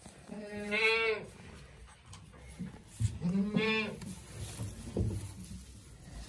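A goat bleating twice, each call about a second long with a wavering pitch, and a light knock about five seconds in.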